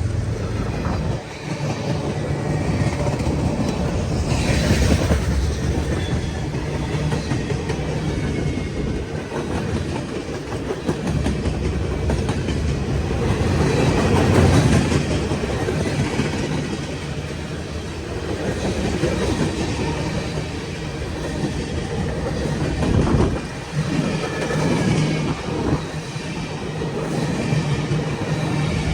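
CSX freight train rolling past, its wheels clattering over the rail joints.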